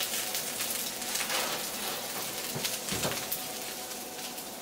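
Faint steady sizzling hiss from the hot frying pan that the chicken breast was just seared in, with a few soft knocks as the foil-lined baking tray is lifted off the stove.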